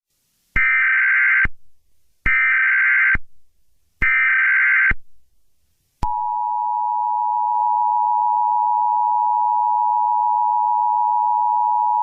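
Emergency Alert System broadcast tones: three short bursts of SAME header data, each about a second long, then the steady two-tone EAS attention signal starting about halfway in.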